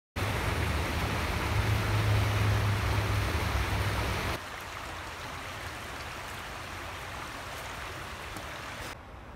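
Fast-flowing creek rushing, a loud steady water noise with a deep rumble under it. After about four seconds it cuts to the softer, steady sound of a smaller stream running, and the level drops again near the end.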